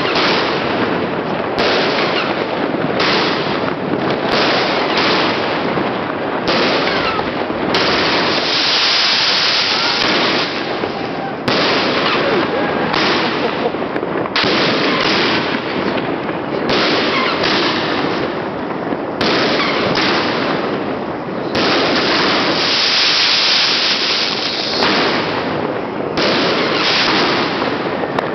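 A large fireworks cake (battery) firing continuously: a dense run of launch thumps and bursting aerial shells with crackle, with two longer stretches of loud hissing, one near the middle and one about two-thirds through.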